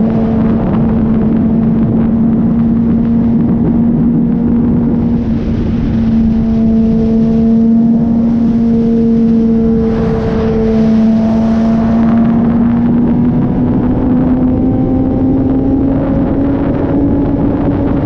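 Kawasaki ZX-10R's inline-four engine running at a steady highway cruise. Its pitch holds level, then rises slightly through the second half, over a steady rush of wind and road noise.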